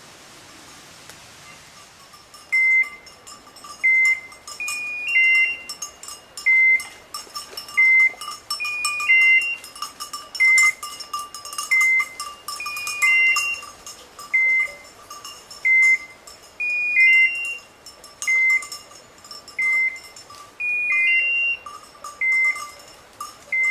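Electronic beeper collar on a woodcock-hunting pointing dog, beeping repeatedly from about two and a half seconds in: short high beeps about every second and a half, some as quick two- or three-note rising figures. This fast beeping is the point-mode signal that the dog has stopped and is holding a bird on point.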